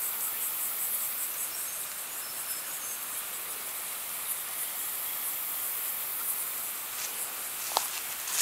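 Steady, high-pitched chorus of insects shrilling in dry bush. A single sharp click, such as a twig snapping underfoot, comes near the end.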